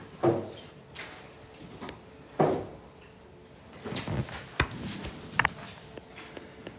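Classroom knocks and thumps: two dull thumps about two seconds apart, then a cluster of knocks and sharp clicks between about four and five and a half seconds in.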